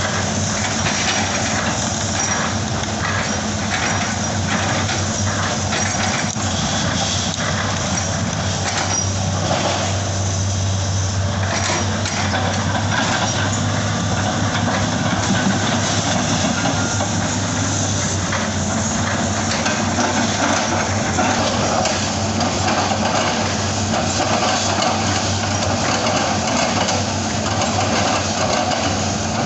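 Hitachi excavator's diesel engine running with a steady hum, with faint knocks from the work in the first dozen seconds.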